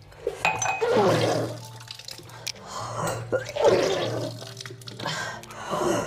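A woman retching and bringing up the warm salt water she has drunk into a washbasin, with water splashing: three heaves, about two seconds apart. This is vaman (kunjal kriya), the yogic cleanse by deliberate vomiting.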